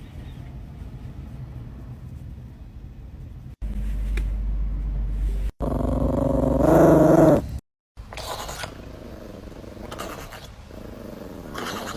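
Dog vocalizing across several short clips that cut in and out abruptly; the loudest part is a drawn-out pitched call that wavers up and down, about six to seven seconds in.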